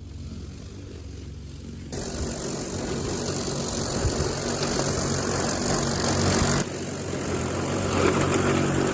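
Electric ride-on mower running on its lithium iron phosphate battery pack: a steady low motor hum, joined about two seconds in by a much louder rushing noise as it works.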